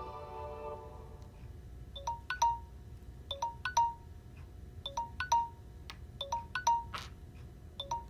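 Samsung Galaxy S9 ringtone playing: a short chime figure of a few quick notes ending on one held note, repeated about every second and a half. It starts about two seconds in, as the last notes of the previous plucked-string ringtone die away.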